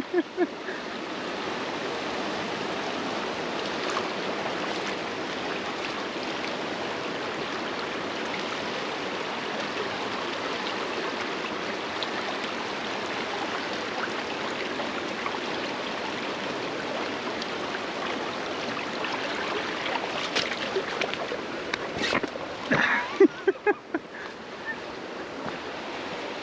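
Steady rushing of fast-flowing water in rapids, an even noise that holds at one level. A few short knocks come near the end, and then the rushing drops away.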